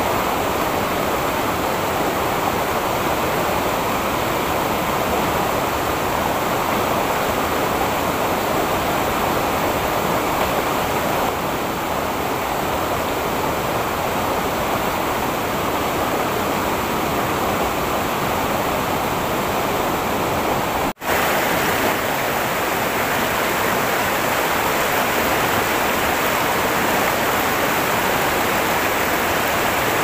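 Fast water rushing steadily over rocks in a mountain stream's rapids, a dense, even rush of water. It cuts out for an instant about two-thirds of the way through, then resumes unchanged.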